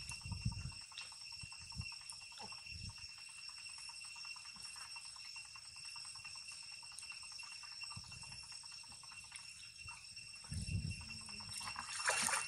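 Young macaques splashing in a pool, with a louder burst of splashing near the end, over a steady high-pitched whine.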